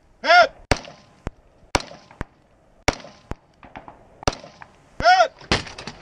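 AR-15 rifle shots fired at long-range steel targets: two loud reports about five seconds apart, with several sharper, quieter cracks in between.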